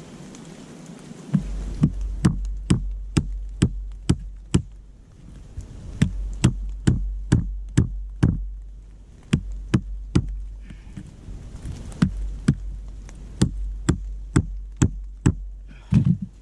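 A rock striking the side of a trekking pole: repeated sharp knocks, about two a second, in runs with short pauses. He is hammering the slipped pole section to pinch it tight so it holds.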